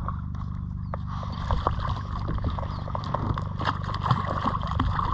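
Water sloshing and splashing at the side of a fishing kayak while a hooked kahawai is fought close in. From about a second and a half in there are many short knocks and clicks.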